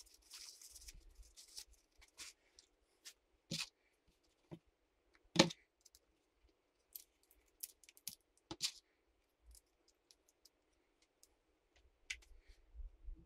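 Small parts of an RC car's centre differential being handled and set down on a workbench: scattered light clicks and taps, with a sharper knock about five and a half seconds in and another about eight and a half seconds in.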